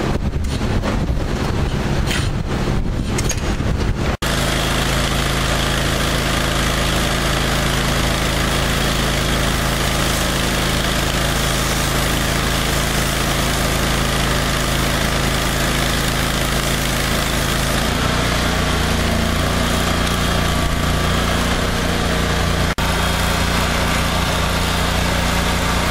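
Wind buffeting the microphone for the first few seconds, then the 30 hp Kohler engine of a truck-mounted hot-water pressure washer running steadily. Its note changes about 18 seconds in.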